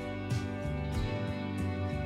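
Soft background music with plucked guitar notes and sustained tones, a new note struck about every half second.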